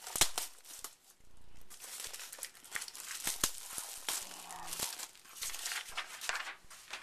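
Clear plastic packaging of scrapbook stickers and rub-ons crinkling and rustling as the packs and loose paper are handled, in quick irregular crackles.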